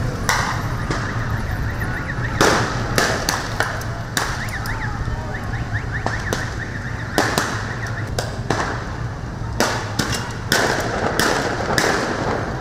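Street clash between riot police and protesters: a string of about a dozen loud bangs, several coming in quick runs, over steady street noise.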